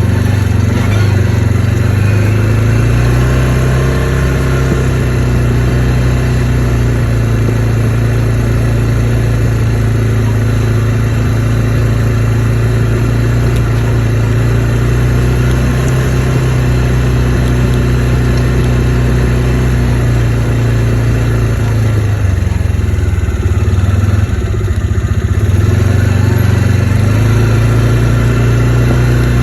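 ATV engine running steadily while riding, its note dipping and wavering briefly about three-quarters of the way through before settling back to a steady pitch.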